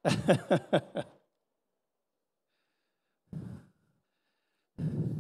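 A man's breath into a close body-worn microphone: two short sighing exhalations, the second longer, with dead silence around them.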